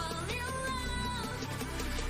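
K-pop dance-pop track with female vocals over a steady bass beat; a singer holds one long note through the first half.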